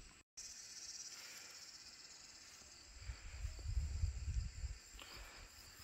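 Faint steady high-pitched insect chorus. A low rumble on the microphone comes in about three seconds in and fades out near the end.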